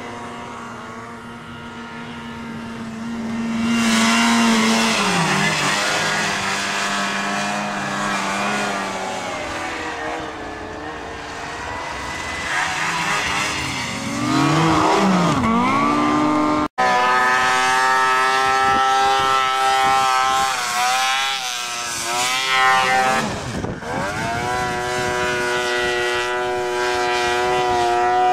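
Snowmobile engines running and revving, their pitch rising and falling as the sleds ride and pass. A sudden break about two-thirds through, then a sled's engine holds a higher, steadier note with a couple of swooping dips.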